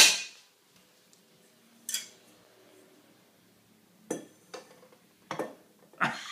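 A stainless steel cooking pot clanking as it is handled and set upside down over a burning penny alcohol stove on a granite countertop to snuff the flame: one sharp clank at the start, another about two seconds in, then a few lighter knocks near the end.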